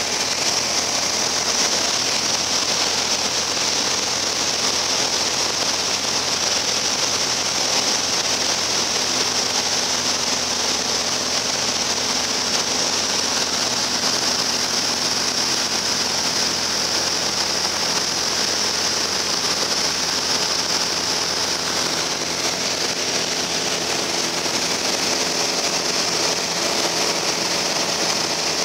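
Piper Cherokee Arrow's piston engine and propeller running steadily in flight, heard from inside the cabin as an even drone under a strong, high hiss of airflow.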